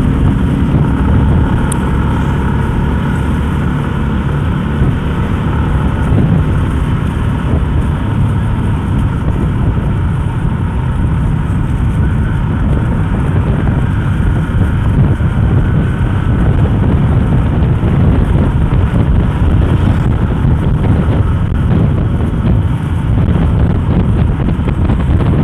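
Steady wind rushing over the microphone of a moving Yamaha Sniper 150 motorcycle, with the engine and road noise running underneath.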